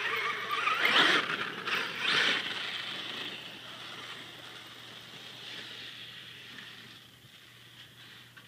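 HPI Savage Flux RC monster truck's brushless electric motor whining as it accelerates over grass, with two rising whines in the first couple of seconds, then fading steadily as the truck drives away.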